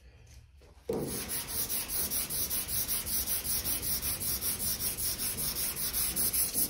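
Sandpaper scrubbed quickly back and forth on the sanded tub panel of a ute, starting about a second in: a steady scratchy rasp pulsing about five strokes a second.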